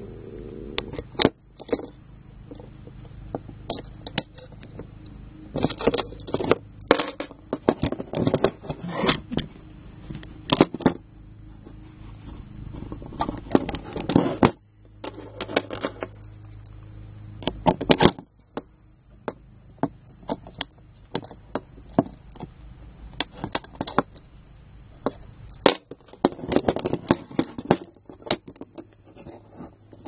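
East German Volkspolizei handcuffs being worked by hand, the stainless steel loops swung and clicked open and shut in the aluminium cuffs: many irregular sharp metal clicks and short scrapes.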